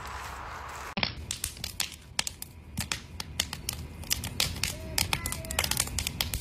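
A shallow stream running over rocks for about the first second, then a wood fire in a metal fire ring crackling with many sharp, irregular pops.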